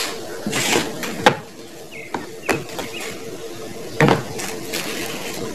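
Ripe guavas being lifted out of a paper-lined cardboard box and set into a plastic tub: paper and straw rustling, with a few sharp knocks as the fruit is put down against the plastic.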